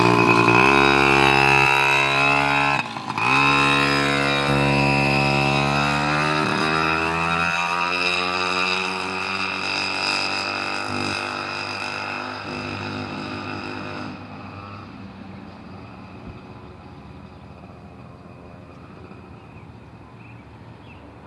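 Mini motorcycle engine running hard, briefly cut back about three seconds in, then picking up again. Its pitch slowly sinks and it fades steadily as the bike rides off.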